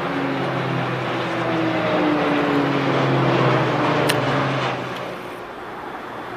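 A formation of EC-120 Colibri helicopters flying past, the engine and rotor whine swelling, then dropping in pitch as they pass and fading about five seconds in. A sharp click sounds about four seconds in.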